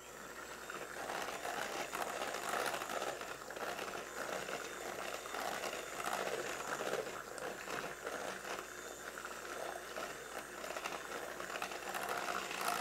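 Electric hand mixer running, its beaters whirring through runny key lime pie filling in a metal bowl and splashing it about; the mixer starts up about a second in.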